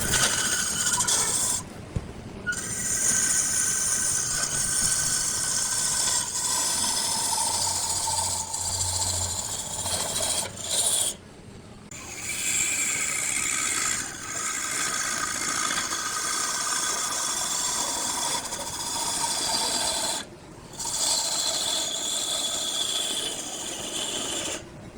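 A tool rubbing against a spinning wood block on a lathe, a steady rasping hiss with a faint whine from the machine. It breaks off sharply three times as the tool is lifted away, then resumes.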